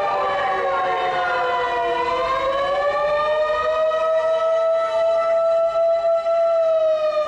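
Emergency vehicle sirens wailing. The pitch slides down, rises again about two to four seconds in, and then holds fairly steady.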